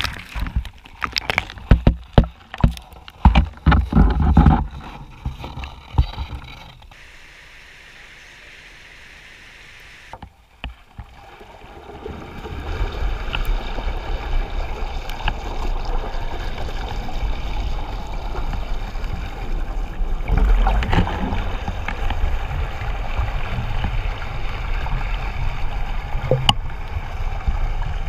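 Water and trout pouring down through a hole in the ice, heard underwater: a steady low rushing and bubbling. In the first few seconds there is a run of loud knocks and splashes.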